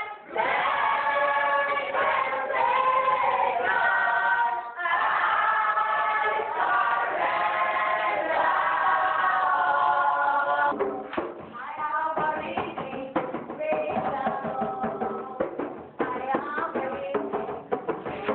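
A group of voices singing a gospel chorus together in long held notes. About eleven seconds in, the singing turns choppier over a run of quick, sharp beats.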